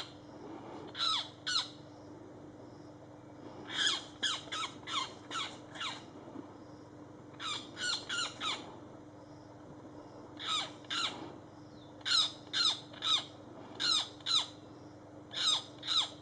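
A bird giving harsh, squawking calls that each drop sharply in pitch, in quick runs of two to six with short pauses between runs. A steady low hum runs underneath.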